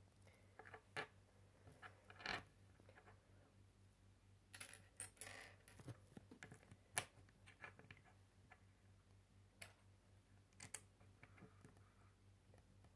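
Faint, scattered clicks and taps of small plastic LEGO bricks being handled and pressed together, with a sharper click about seven seconds in.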